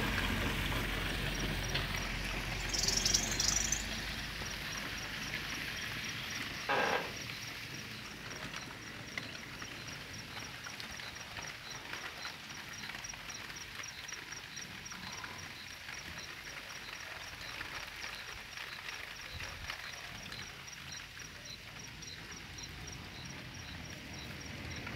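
Rain falling steadily, with an insect chirping in a high, regular rhythm of about two to three pulses a second above it. A brief high-pitched sound comes about three seconds in, and a short louder sound about seven seconds in.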